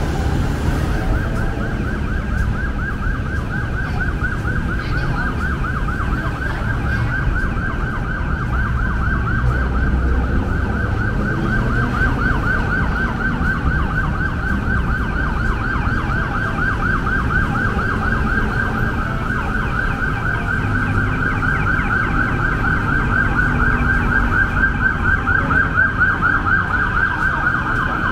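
Emergency vehicle siren in a fast yelp, its pitch sweeping rapidly up and down, growing louder near the end, over a low rumble of city traffic.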